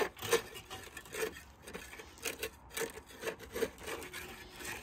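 A hand tool scraping repeatedly through concrete mix, in uneven gritty strokes about two a second.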